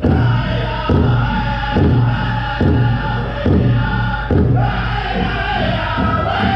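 Native singing with a drum struck at a slow, even beat, a little under one stroke a second. The singing swells about five seconds in.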